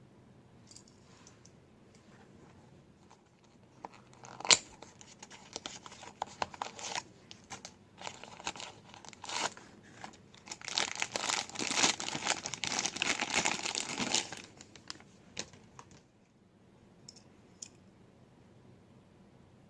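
Toy car packaging being opened by hand, torn and crinkled. After a quiet start comes a sharp click, then scattered crackling. This builds to a few seconds of dense tearing and crinkling that stops about three quarters of the way through, followed by a few faint ticks.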